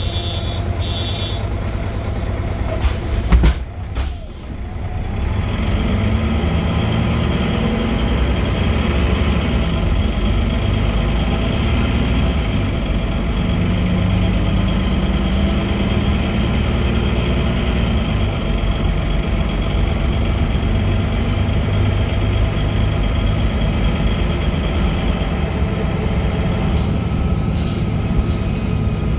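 Cabin noise of a MAN NG313 articulated city bus with its MAN D2866 diesel and Voith automatic gearbox: a sharp knock about three seconds in, then the engine and drivetrain noise grows louder and holds steady, with a faint high whine that rises and then slowly falls.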